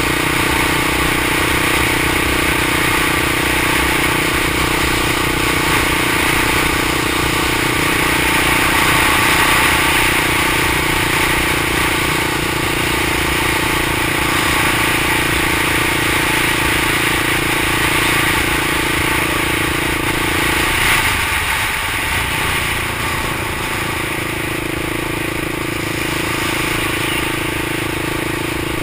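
Honda XR650L single-cylinder four-stroke engine of a three-wheeler running steadily at cruising speed, with wind and road noise. The engine note briefly breaks and changes about three-quarters of the way through, then runs on.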